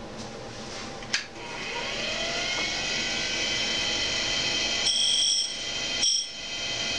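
A click, then the Cuttermaster Journeyman grinder's motor spins up with a rising whine and runs steadily. About five seconds in, a shrill, higher ringing joins in and breaks off briefly near six seconds: the grinding wheel grinding the secondary clearance angle on the end of a 3/4 inch end mill.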